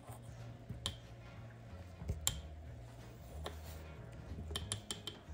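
Miniature knife clicking against a tiny wooden cutting board as carrot is diced: a few single taps spaced about a second apart, then a quick run of four or five taps near the end.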